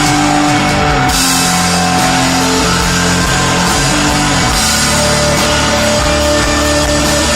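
Loud live instrumental desert rock from a guitar, bass and drum-kit trio. Held low guitar and bass notes change in steps, and cymbals wash in about a second in.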